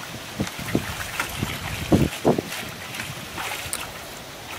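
Shallow muddy water splashing and sloshing as someone wades and gropes by hand among water hyacinth. It comes in irregular splashes, the loudest two about two seconds in.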